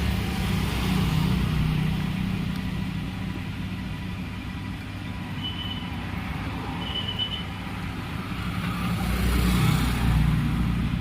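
Steady background road-traffic rumble, swelling near the end, with two short high beeps about midway.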